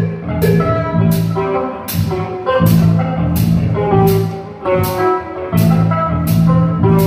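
Live band playing: guitar notes over a drum kit, with a sharp drum or cymbal hit on a steady beat about every three-quarters of a second.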